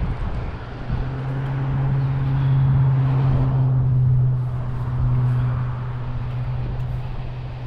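A steady low engine hum that comes in about a second in, swells through the middle and eases off, over wind noise on the microphone.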